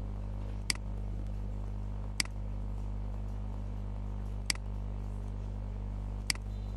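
Computer mouse button clicking four times, single sharp clicks a couple of seconds apart, over a steady low hum.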